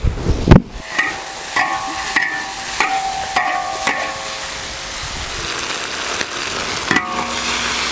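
Metal spatula scraping and knocking against a large iron wok as beef is stir-fried in its sauce, the wok ringing briefly with each stroke, about every half second or so, over a steady sizzle. There is a heavy knock just after the start. The strokes thin out after about four seconds, leaving mostly the sizzle, with one more stroke near the end.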